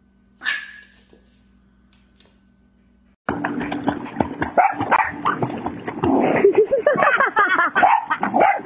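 One short sharp sound about half a second in against a quiet room, then, from a sudden cut about three seconds in, loud water splashing as a boxer dog thrashes in a swimming pool, with a woman laughing hard and a dog barking.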